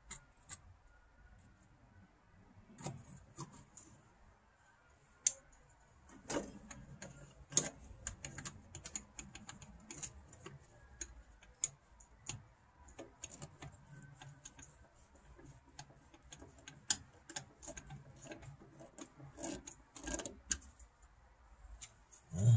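Scattered small clicks and light metallic taps, irregular and quiet, as an electric windshield wiper motor is handled and lined up with its linkage collar during fitting.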